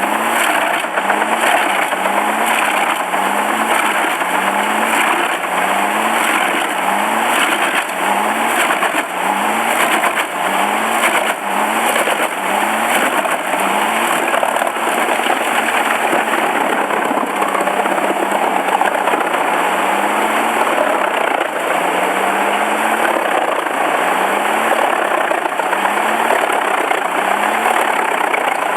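Wood chipper running hard, its engine under load with a dense, continuous clatter of wood being chipped. A low rise and fall in the engine note repeats about every three quarters of a second and holds steady for a few seconds past the middle.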